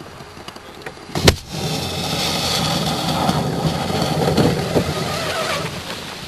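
A sharp crack, then about four seconds of a loud, steady motor-and-water rush that tapers off near the end: a fast electric RC offshore boat running close by.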